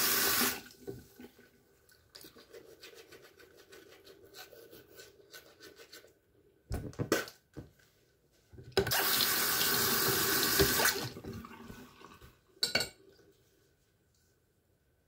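Bathroom sink tap running into the basin and shut off about half a second in, then small drips and clicks. After a few sharp knocks the tap runs again for about two seconds and is turned off, with one more sharp knock near the end.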